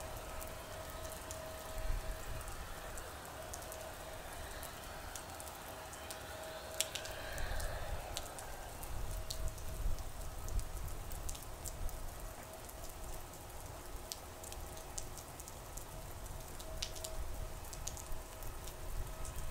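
Steady rain, with scattered sharp raindrop ticks close to the microphone over a low rumble. A faint steady whine runs in the background.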